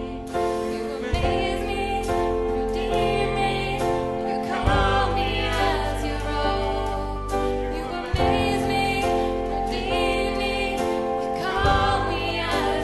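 Slow worship music with singing: sustained chords and held bass notes that change every few seconds, with a strong hit at each change.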